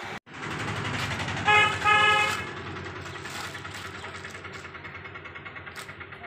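A vehicle horn honks twice in quick succession about one and a half seconds in, over a vehicle engine that runs steadily and slowly fades.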